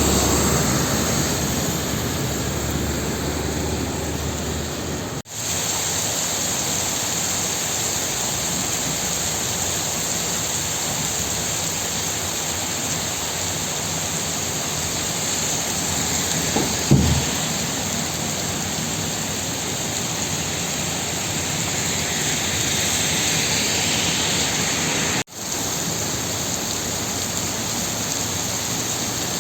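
Heavy rain falling with a steady hiss. A brief low thump comes once, a little past the middle, and the sound drops out for an instant twice.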